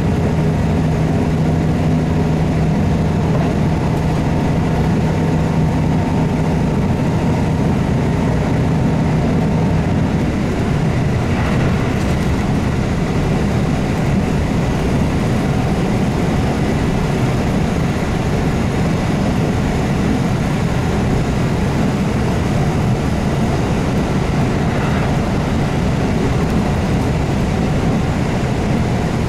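Running noise of a JR KiHa 75 diesel railcar, whose Cummins diesel engine drones at a steady pitch. About ten seconds in, the engine note falls away and an even rumble of wheels on rail carries on.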